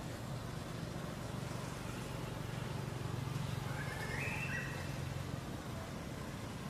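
Steady low hum, with one short high-pitched call rising in steps about four seconds in.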